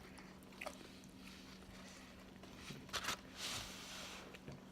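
Faint chewing and biting of food, with a few small crunchy clicks about three seconds in, over a low steady hum.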